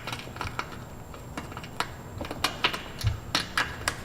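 Irregular light clicks and taps, about a dozen scattered unevenly, with a soft low thump about three seconds in.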